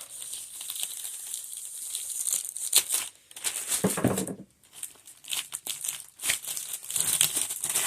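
Packaging of firecracker packs crinkling and tearing as it is pulled open by hand, in irregular crackly bursts.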